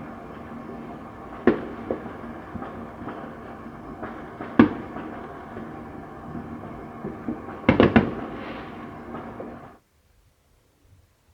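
Fireworks going off: single sharp bangs twice, then a quick cluster of bangs, over a steady background rumble. The sound cuts off abruptly near the end.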